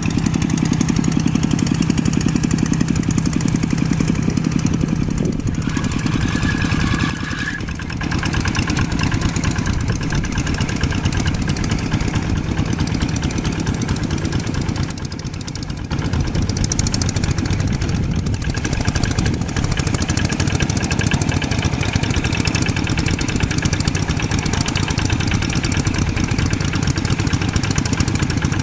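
Old tractor engine running steadily, dropping briefly in level twice, about seven and fifteen seconds in.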